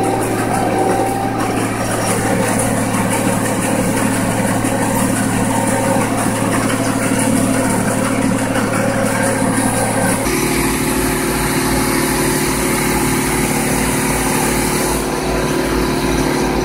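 Tractor engine and PTO-driven pull-type forage harvester running steadily under load while chopping a pea-and-barley crop and blowing it into a wagon. About ten seconds in the sound changes abruptly to a deeper, lower engine drone heard from inside the tractor cab.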